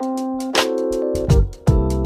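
Background music: pitched instrumental notes over a regular drum beat.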